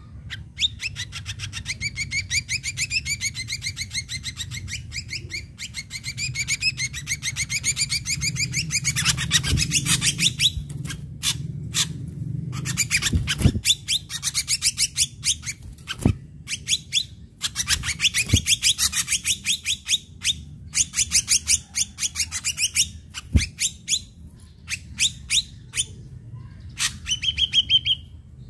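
Ashy drongo singing in long runs of rapid chattering trills and repeated whistled notes, broken by short pauses and a few sharp clicks.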